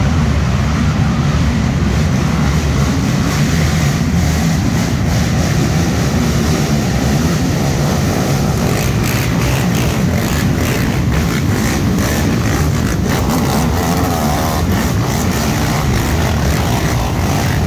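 Several racing ATV engines running hard at once as a pack of quads rides past on a dirt race track, with the throttle blipped repeatedly in the second half.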